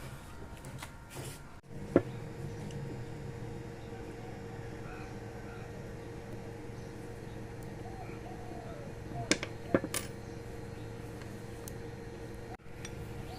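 Steady low hum of room tone, broken by a single sharp click about two seconds in and a quick run of three clicks a little past the middle.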